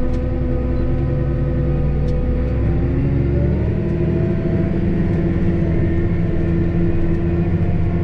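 John Deere 8530 tractor's six-cylinder diesel engine heard from inside the cab, running steadily and then rising in pitch a few seconds in as it speeds up, holding at the higher speed.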